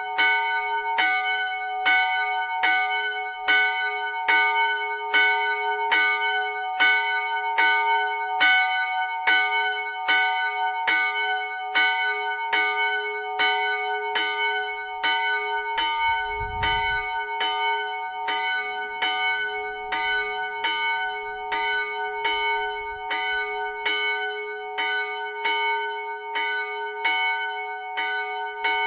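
A single 80 kg bronze church bell, cast by Miklós Gombos in 2006, swinging by electric drive on a raised yoke with a falling-type clapper. It strikes in an even rhythm, a little more than once a second, each stroke ringing on under the next.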